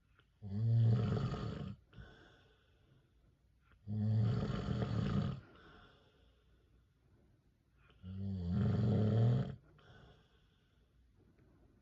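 A man snoring in his sleep: three loud snores about four seconds apart, each about a second and a half long, with faint breaths between them.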